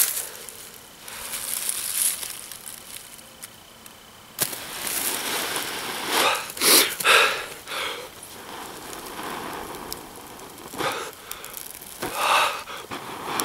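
A person blowing repeated long, breathy puffs into a smouldering tinder bundle to bring a friction-fire coal up to flame.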